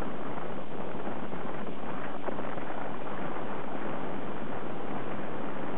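Wind buffeting the microphone of a moving vehicle, a steady rushing noise, with a vehicle engine running underneath.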